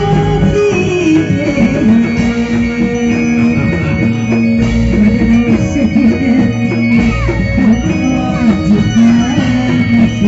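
Live Reog Indramayu ensemble music played continuously and loudly: a run of drum strokes under a sustained melodic line that bends in pitch.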